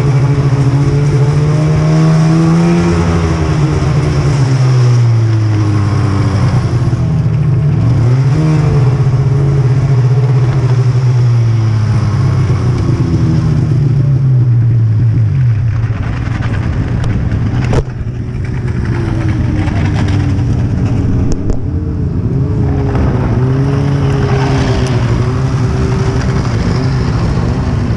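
Snowmobile engine running under the rider, revving up and easing off so its pitch rises and falls several times as it moves slowly along a slushy road shoulder. A single sharp click comes about two-thirds of the way through. Near the end the engine settles to a steadier, lower run as the sled pulls in and stops.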